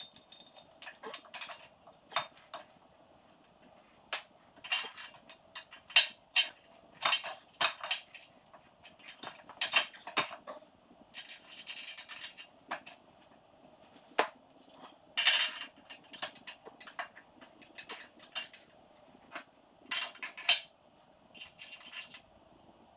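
Hand tools clinking and knocking against the steel parts of a tractor: irregular sharp metallic strikes, roughly one a second, some ringing briefly.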